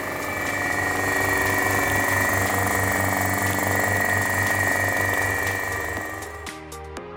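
Workshop vacuum pump running steadily, drawing down a vacuum bag over a composite layup, with a constant high tone and a low pulsing beat. It fades out about six seconds in.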